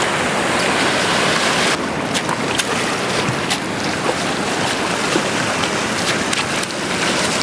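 Small waves washing over a shingle beach, with short splashes as a hooked kahawai thrashes in the shallow wash while it is dragged ashore.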